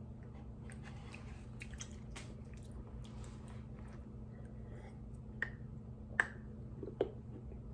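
Wet mouth sounds of sucking hard-candy lollipops: lip smacks and tongue clicks, a sip from a glass about four seconds in, and three sharper smacks near the end. A faint steady hum runs underneath.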